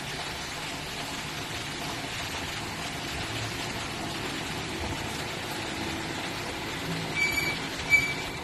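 Steady background rumble and hiss, with two short high-pitched pings about a second apart near the end, the second the louder.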